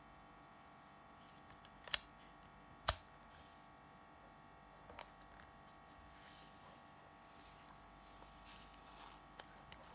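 Two sharp clicks about a second apart, then a few faint taps, as a Samsung Fino 30 DLX compact 35mm film camera's plastic body is handled and turned over in the hands.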